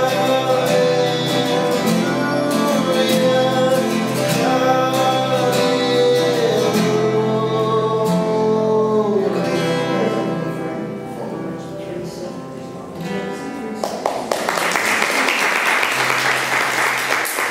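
Two acoustic guitars played with a man singing the closing lines of a song in long held notes; the singing ends about two-thirds of the way in and the guitars ring out. Applause breaks out in the last few seconds.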